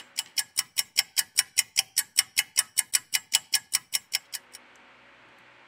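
Clock-ticking sound effect: rapid, even ticks, about six a second, that stop about four and a half seconds in. It goes with an on-screen three-minute stopwatch and marks a timed wait.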